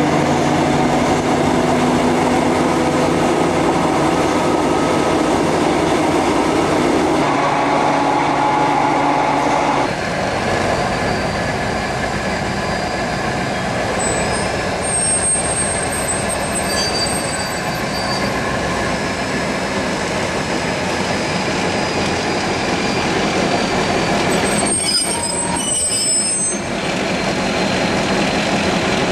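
A train running, heard from aboard, with a steady low drone. About a third of the way in this gives way to a twin-engined VR Dr13 diesel locomotive running beside it, with high-pitched squeals, most likely wheels on rail, twice.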